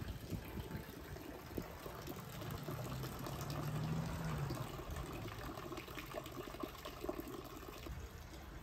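Cast-stone wall fountain: water running down its spillway and splashing steadily into the stone basin below.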